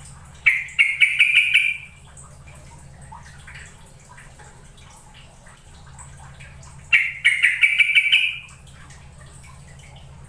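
Yellow-vented bulbul (trucukan) singing: two loud bursts of quick, bubbly notes, each about a second and a half long and some six seconds apart. Faint chirps from other birds fill the gaps.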